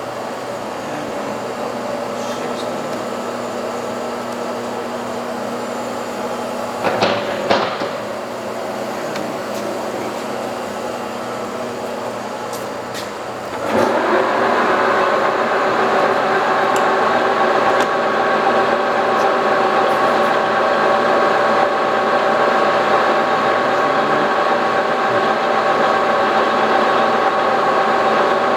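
Geminis GE-650 gear-head lathe running under power, a steady machine hum with a gear whine. There is a brief clunk about seven seconds in, and about fourteen seconds in the sound suddenly steps up to a louder, denser whine.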